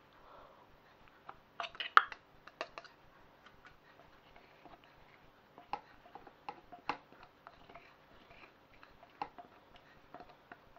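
Silicone spatula tapping and scraping against a small plastic chopper bowl, with scattered light clicks and knocks of plastic, the loudest cluster about two seconds in.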